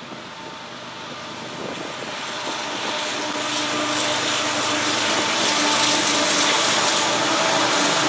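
Diesel freight locomotives approaching, their engine drone growing louder over the first five seconds and then holding steady.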